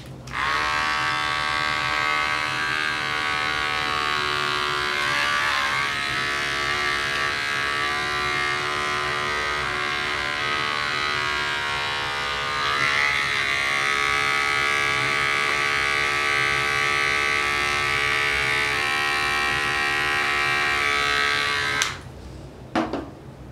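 Electric animal hair clippers running steadily while clipping a dog's fur around a facial abscess, switched on just after the start and cut off suddenly about 22 seconds in. The tone shifts slightly and gets a little louder about halfway through.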